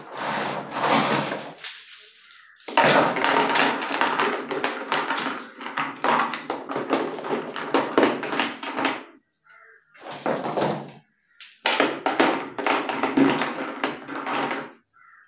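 River stones clattering and knocking together as they are handled and set in place. The rattling comes in several stretches of dense clicks, the longest lasting about six seconds, with short pauses between.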